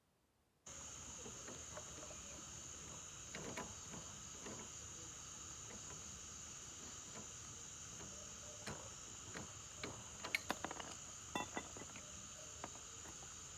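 Crickets chirring steadily, a night-insect chorus, with a cluster of small sharp clicks and clinks from hands working on metal parts about ten seconds in.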